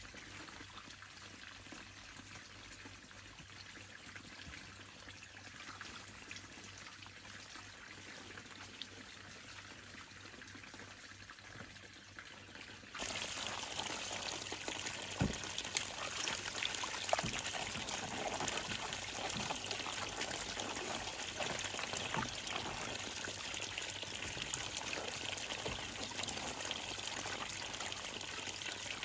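Water running and pouring. It is faint at first, then much louder from about 13 seconds in, with a few light knocks.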